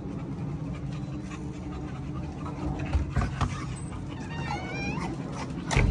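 A bully dog whining in a short run of high, wavering notes about four seconds in. There is a knock a little before that, and a louder one near the end.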